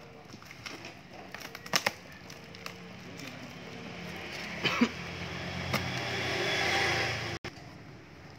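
A parcel being handled and unpacked: a few sharp knocks and clatter. Then a noise swells over a few seconds and cuts off suddenly.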